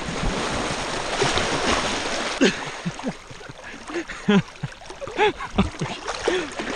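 Splashing water as a person runs and wades into a lake, then close, gurgling slosh and splashes of water around a camera at the surface while he swims with arm strokes.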